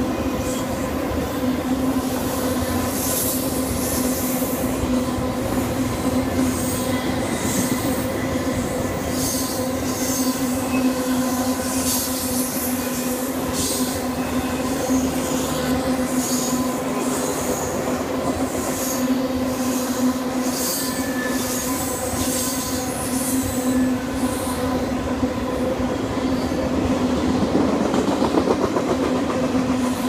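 Intermodal freight train's flatcars rolling steadily past with a constant rumble and hum, and brief high-pitched wheel squeals now and then.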